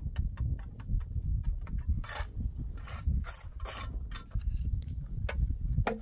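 Concrete blocks and mortar being worked by hand: scattered small clicks and knocks, with two longer scrapes about two seconds in and again a second and a half later, over a steady low rumble.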